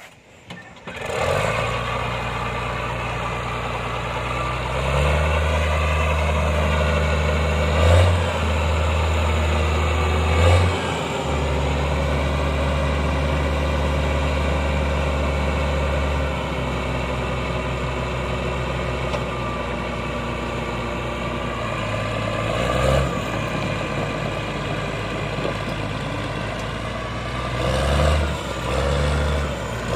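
Caterpillar D6G bulldozer's diesel engine running, starting about a second in, its pitch and load shifting as it works. A few short clanks cut through the engine sound.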